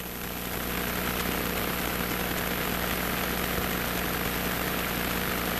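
Cessna 150's four-cylinder Continental O-200 engine and propeller being brought up to run-up power, about 1700 rpm, for the pre-takeoff check. It rises over about the first second, then holds steady.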